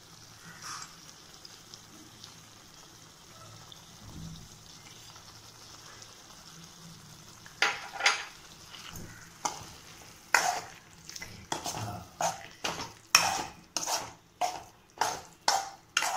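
A steel spoon scraping and clanking in a pan as chicken in a thick green mint masala is stirred, over a faint frying sizzle. The scrapes start about halfway through and come faster, roughly two a second, toward the end.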